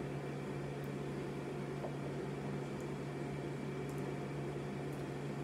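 Steady low electrical hum with an even hiss, unchanging throughout, with a couple of faint ticks.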